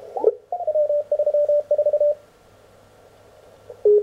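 Morse code (CW) signals from an Elecraft K1 transceiver's receiver as its tuning knob is turned. A tone sweeps in pitch as the dial passes a signal, then one station keys steadily for about a second and a half. After a stretch of faint receiver hiss, a second, lower-pitched CW signal comes in near the end.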